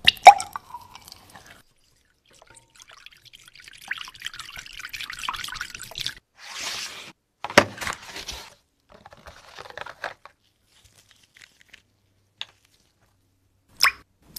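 Clear epoxy resin poured in a thin stream from a plastic bottle into a glass beaker, a soft trickling for a few seconds. Sharp clicks and short rustles of handling come before and after it.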